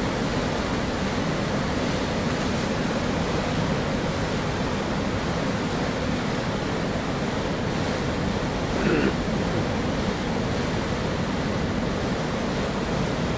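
River cruise ship's propeller wash churning the water in a lock chamber as the ship pulls away under power: a steady rushing, churning noise.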